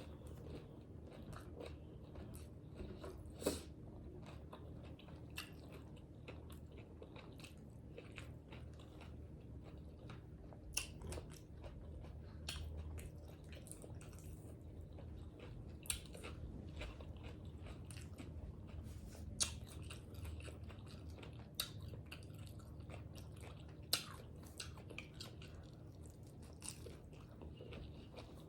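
Close-miked eating sounds: a person biting and chewing tacos, with scattered sharp crunches every few seconds.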